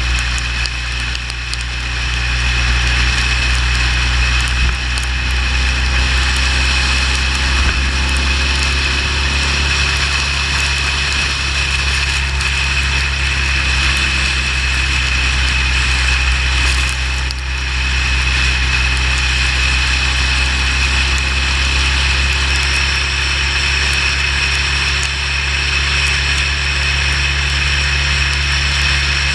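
Motorcycle engine running steadily at highway speed, with wind and road noise. The sound holds even throughout, with a slight dip about seventeen seconds in.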